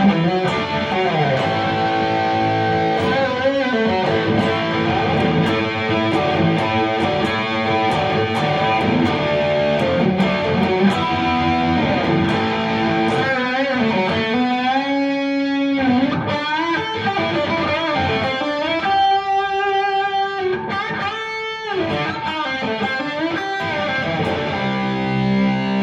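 Guild S-70 electric guitar, fitted with a DiMarzio bridge pickup and a Duncan neck pickup, played through an amp as a tone demo. It plays a continuous run of single-note lines and chords, with sustained notes bent in pitch past the middle.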